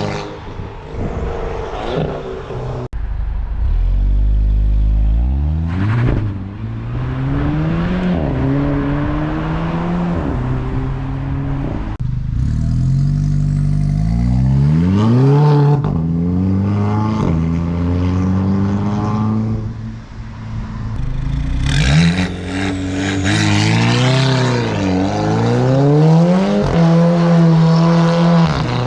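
Volkswagen Golf GTI engine and exhaust revving in a string of short clips, some on the stock exhaust and some through a 3-inch straight pipe. The pitch climbs and falls again and again, and the sound changes abruptly every few seconds where one clip cuts to the next.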